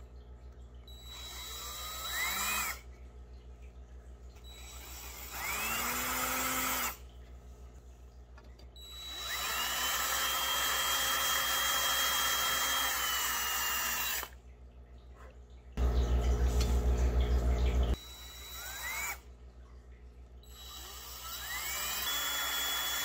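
Cordless drill boring shallow pilot holes into the edge of a wooden triangle, in several separate runs. Each run starts with a rising whine as the trigger is squeezed, and one steady run lasts about five seconds. Between runs, a louder low hum comes in for about two seconds.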